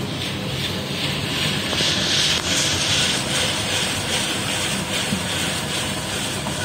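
Steady city street noise: traffic hum with a constant hiss, swelling slightly about two seconds in.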